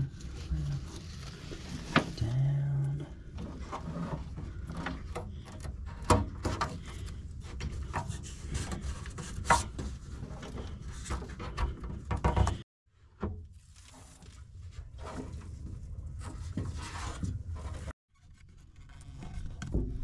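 Hands handling wire and trim against the truck bed and rail: irregular rubbing and scraping with scattered light clicks and knocks. The sound breaks off abruptly twice, about two-thirds through and again near the end.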